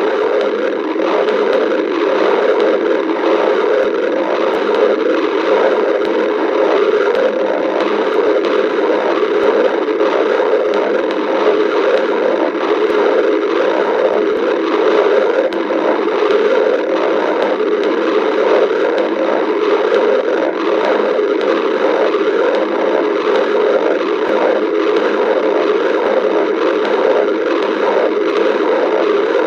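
Human stomach growling, picked up with the microphone close against the belly: a loud, dense churning noise that keeps going without a break.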